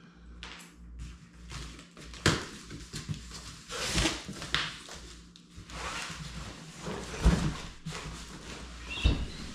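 Large cardboard shipping box being opened and handled: cardboard flaps scraping and rustling, with several sharp knocks and thumps as the box is tipped and set upright on a wooden floor, the loudest a little past seven seconds in.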